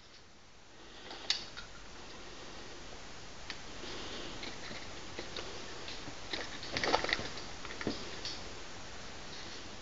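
Light clicks and taps from an artificial eyeball being handled and pressed into the socket of a sculpted head, over a steady hiss. The clicks come scattered, with the loudest cluster about seven seconds in.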